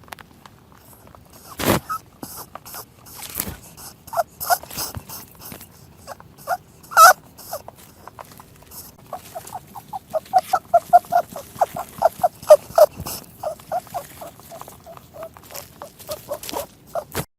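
An animal's short, repeated calls, scattered at first, then coming quickly at about three or four a second from about nine seconds in, with a few sharp clicks in between.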